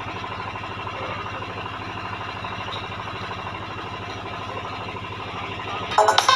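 An engine idling steadily with an even, low hum. About six seconds in, loud electronic music bursts in through the loudspeakers.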